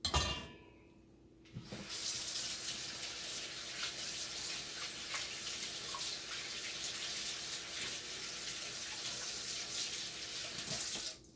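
Kitchen faucet running into a stainless-steel sink as floury hands are rinsed under the stream, starting about two seconds in and shutting off just before the end. A short knock comes right at the start.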